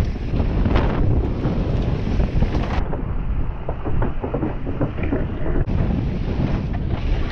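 Wind buffeting an action camera's microphone as a mountain bike rides fast down a rough dirt trail, mixed with knocks and rattles of the bike over the ground. The sound changes abruptly about three seconds in and again near six.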